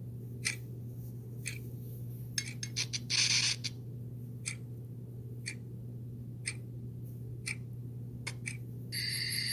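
A clock ticking steadily about once a second over a constant low hum, with a brief scraping rustle about three seconds in and a bright ringing tone starting near the end.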